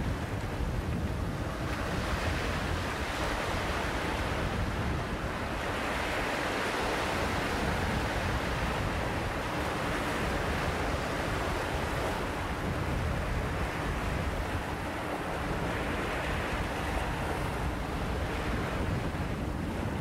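Small waves breaking and washing over rocks and pebbles along a bay shore, a continuous rushing surf that swells and eases, with wind buffeting the microphone as a low rumble.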